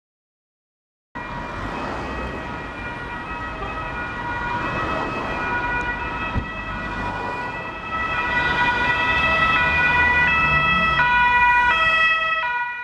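Police car siren sounding in steady tones that switch pitch in steps, over the rumble of the car driving. It starts about a second in, grows louder about two-thirds of the way through, and cuts off abruptly at the end.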